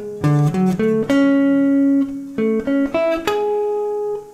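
Gibson Les Paul electric guitar playing single-note chord-tone arpeggios in two phrases. Each phrase is a quick rising run of notes ending on a held note. Each run starts from the root of the chord, the stiff way beginners play chord tones.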